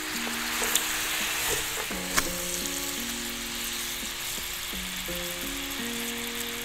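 Chicken feet in spicy red sauce sizzling in a frying pan, stirred with wooden utensils, with a sharp click about two seconds in.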